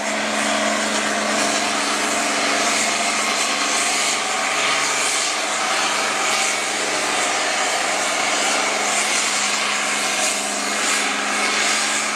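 International 706 pulling tractor running at full throttle down the pulling track, its engine note held steady and loud.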